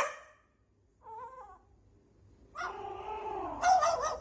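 A pet animal's calls: a short cry at the start, a faint brief one about a second in, then a longer, louder wavering call from about two and a half seconds in.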